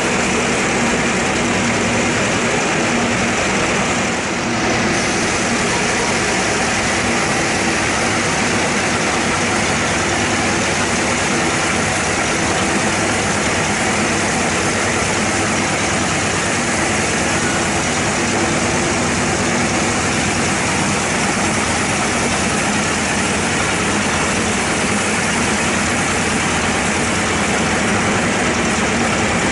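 Sawmill band saw running steadily, its blade cutting lengthwise through a log of bayur (Pterospermum javanicum) wood. The sound is a loud, even mechanical din that dips briefly about four seconds in.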